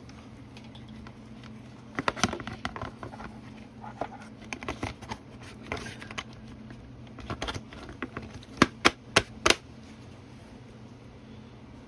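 Hands handling wiring and plastic parts: scattered light clicks, taps and rustles, then four sharp clicks in quick succession a little after the middle.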